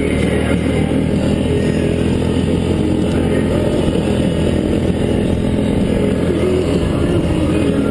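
ATV engine running steadily while riding, its note wavering slightly.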